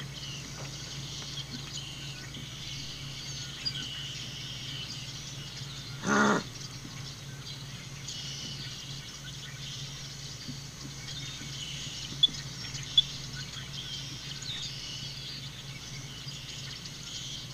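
Quiet open-air ambience: faint bird chirps over a steady low hum. A brief louder sound comes about six seconds in, and two sharp clicks about twelve and thirteen seconds in.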